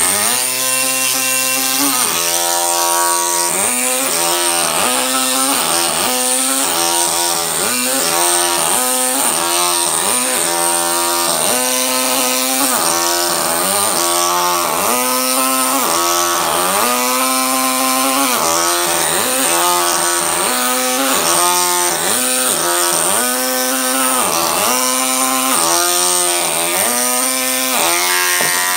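Pneumatic carving hammer chiselling a stone block. It runs with a steady pitched buzz and a high hiss, and its pitch dips briefly about once a second.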